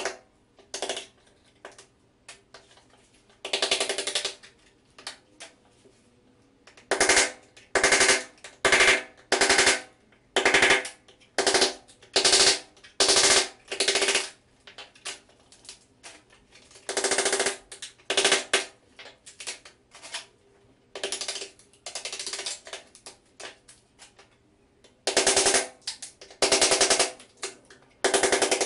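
Hammer driving a steel chisel into prefinished parquet strips, in short flurries of quick blows with pauses between. The chisel is splitting the centre of each strip to relieve compression, so that the strips that stay do not chip.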